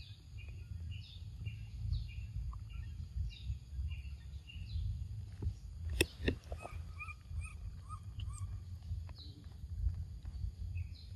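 Birds calling with short falling chirps, repeated about once or twice a second, over a steady low rumble. A sharp click about six seconds in, then a quick run of shorter chirps.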